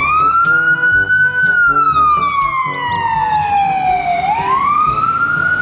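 Ambulance siren in a slow wail: it climbs, falls slowly over a few seconds, then climbs again. A children's music track plays under it.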